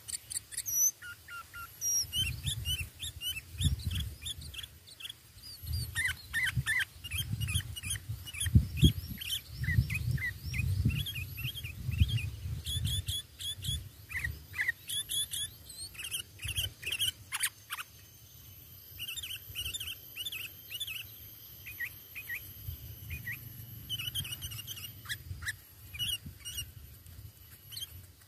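Sooty-headed bulbuls (kutilang) calling: many short, quick chirping notes that come thickest in the middle and thin out later, over a low rumble.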